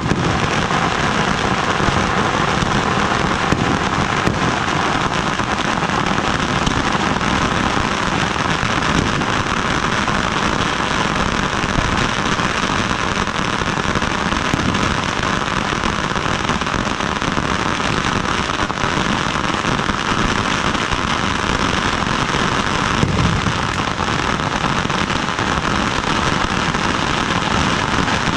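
Ground-level consumer fireworks and firecrackers going off continuously: dense, steady crackling and popping, many small overlapping bangs with no pause.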